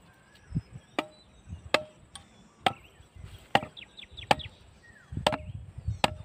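Bamboo stake being hammered into the ground with a hand tool: seven sharp knocks, roughly one a second, each with a short hollow ring.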